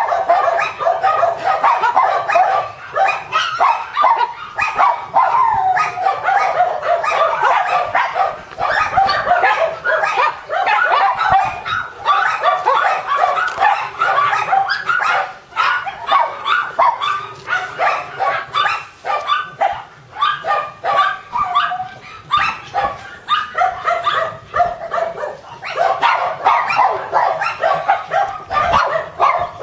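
Shiba Inu puppies yipping and whimpering: a near-continuous run of short, high-pitched calls with only brief pauses.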